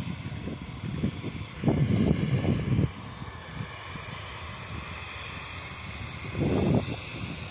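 Embraer ERJ-145 regional jet taxiing, its two rear-mounted turbofan engines running with a steady hiss and a faint high whine. Wind buffets the microphone twice, loudest about two seconds in and again near the end.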